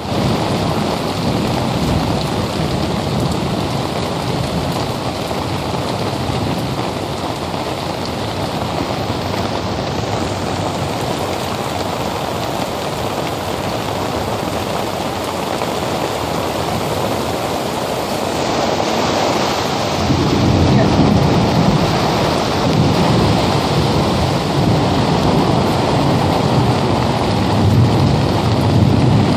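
Heavy storm rain pouring down in a kalbaishakhi (nor'wester) thunderstorm, a dense steady hiss. From about twenty seconds in it grows louder, with deep rumbling surges.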